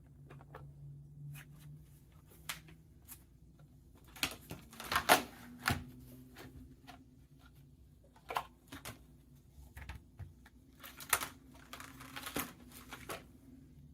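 Irregular, scattered clicks and light knocks from a mechanical keyboard being handled, with some rustling, not an even typing rhythm.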